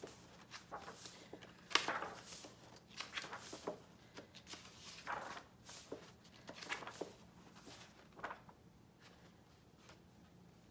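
Pages of a large hardcover book being turned and handled: a series of soft papery rustles and flicks, dying away near the end.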